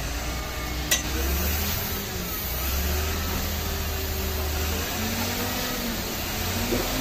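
Tata tipper truck's diesel engine running steadily under load, driving the hydraulic hoist that raises the loaded dump body to tip it. A single sharp click sounds about a second in.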